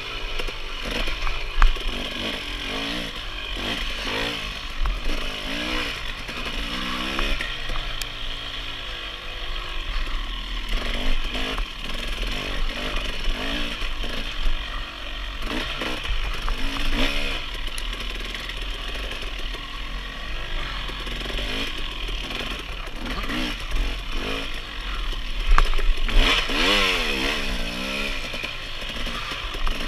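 Dirt bike engine being ridden hard, revving up and down continually with the throttle and gear changes, its pitch rising and falling every second or two over a steady rushing noise. A quick run of sharp revs near the end is the loudest part.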